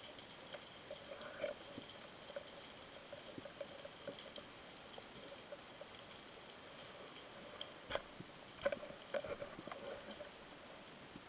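Underwater ambience: faint scattered clicks and crackles over a quiet hiss, with a cluster of sharper knocks about eight to nine seconds in.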